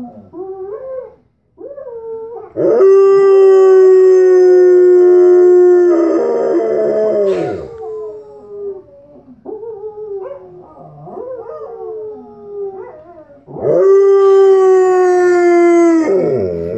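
Dogs howling: a German Shepherd howling along with a dog howling in a video on the TV. There are two long, steady howls, the first about three seconds in and the second near the end, with shorter wavering howls and yips between them.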